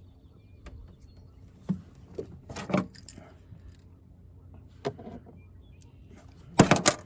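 Scattered knocks and clicks of gear being handled, a few single ones and then a louder clatter near the end.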